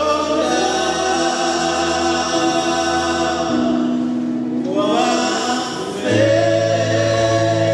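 Male vocal quartet singing a gospel song in close harmony, holding long chords that change about three and a half and six seconds in.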